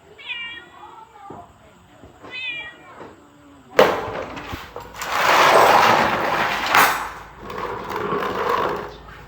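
A cat meows twice, then a sudden loud bang about halfway through, followed by several seconds of loud, rushing noise.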